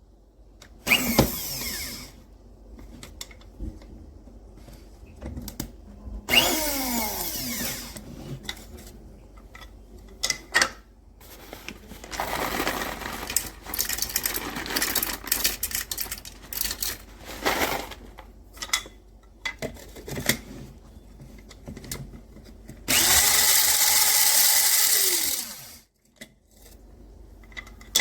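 KRUPS Fast Touch electric blade coffee grinder running in several short bursts, grinding coffee beans as the lid is pressed down and let go. The longest and loudest run comes near the end and cuts off sharply, the motor's pitch falling as it spins down.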